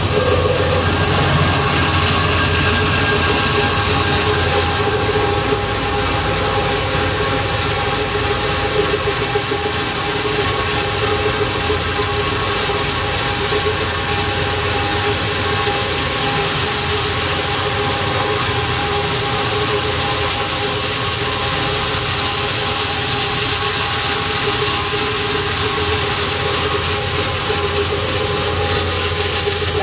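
Bandsaw running steadily, its blade cutting through a thick round slab of log.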